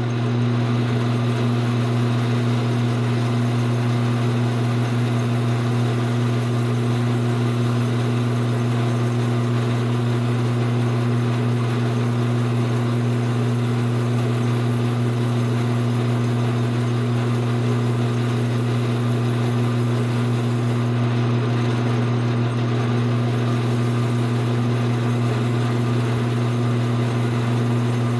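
Lathe running steadily with a constant hum while a Scotch-Brite pad is held against the spinning thin-wall tube to dress its outside, rubbing off the oxidation layer.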